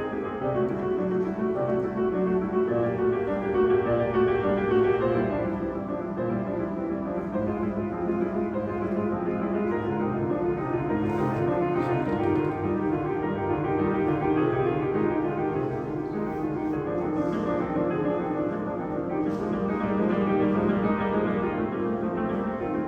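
Piano trio playing live: piano with violin and cello in steady, sustained music.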